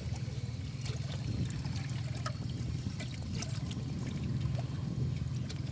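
Water sloshing and lightly splashing as people wade through a shallow canal and grope under the surface with their hands, over a steady low rumble.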